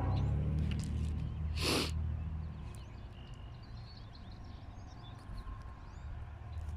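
Low rumble of an approaching freight train's GE diesel locomotives, dying away about three seconds in, with a brief hiss partway through. Small birds chirp throughout.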